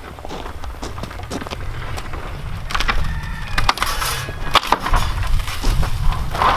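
Nailed wooden shipping crate being pulled apart by hand: the lumber frame creaks and cracks, with a run of sharp snaps and knocks from about halfway through as the nailed joints give way.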